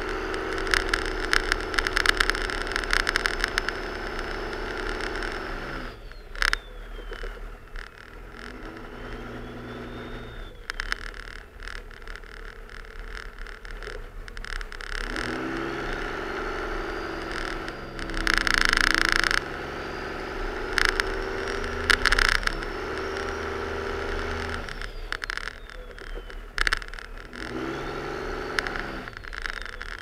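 Cummins turbodiesel engine of a Dodge Ram 2500 revving up and falling back several times during short plow pushes, with a high whine that rises and falls with the revs. The steel plow blade scrapes and crunches through heavy, dense snow, with a loud burst of scraping about two-thirds of the way through.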